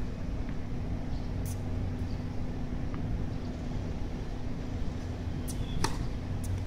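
Tennis racket striking a serve with one sharp pop just before six seconds in, with a few fainter clicks around it, over a steady low background hum.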